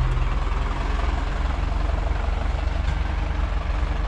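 A farm machine's diesel engine running steadily close by, with an even low throb.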